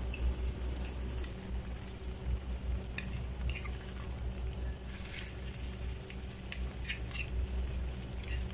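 Egg sizzling in hot oil in a nonstick frying pan while it is stirred and broken up, with a few short scrapes and taps of the utensil against the pan over a steady low hum.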